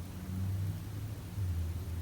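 Low, steady rumble of a sleeping person breathing out between two snores.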